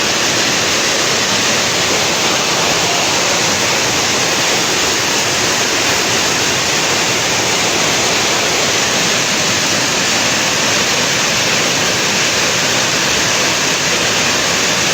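Loud, steady rush of fast-flowing floodwater after heavy rain.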